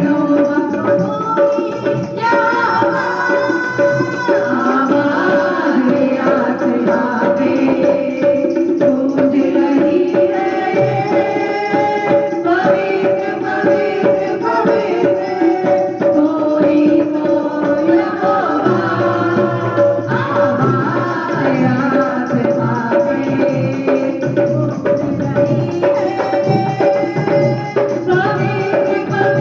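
Hindi Christian worship song music with tabla playing a steady rhythm under a melody line and a held drone note.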